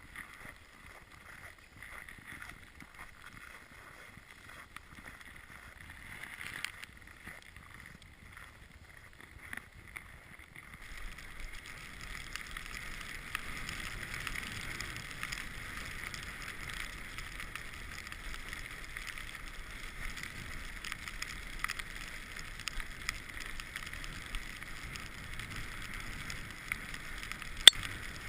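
Mountain bike riding on a winter trail, picked up by a GoPro: steady rolling and rattling noise with small ticks, getting louder about eleven seconds in, and one sharp click near the end.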